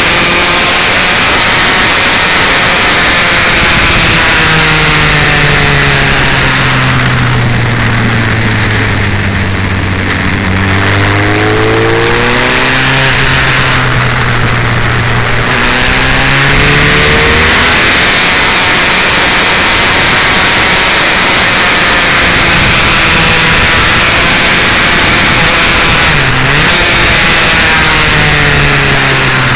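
Motorcycle engine heard from the rider's position under heavy wind noise on the microphone. The engine note falls as the bike slows for a bend about five seconds in, rises again as it pulls out, then holds fairly steady with one short dip near the end.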